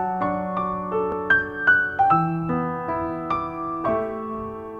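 Background piano music: a gentle melody of struck notes, about two or three a second, over held low notes.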